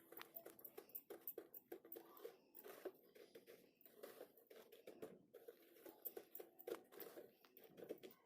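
Faint, irregular small taps and crinkly rustling of hands shaping vegetable cutlets, pressing the mashed potato mixture in a plastic lid and patting it in dry bread crumbs.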